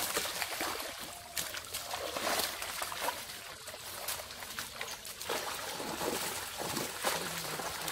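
Pond water splashing and sloshing as a seine net is hauled in through the shallows, with fish thrashing in the gathered net: a continuous run of irregular splashes.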